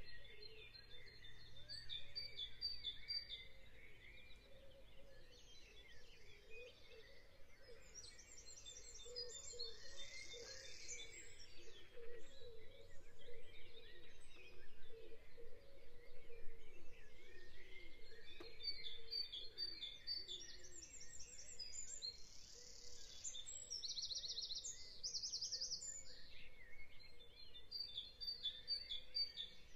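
Woodland birdsong: several small birds singing, with bursts of fast, high trills recurring every few seconds over a faint steady outdoor background.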